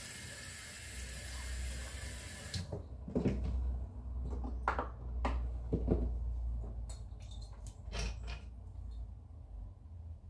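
Bathroom sink tap running with a steady hiss, shut off abruptly about two and a half seconds in, followed by scattered light knocks and clicks.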